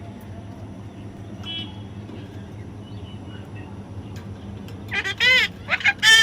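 A baby parrot calling. A quick run of loud, pitched calls starts about five seconds in, each call bending up and down in pitch, after a quiet stretch with a low steady hum.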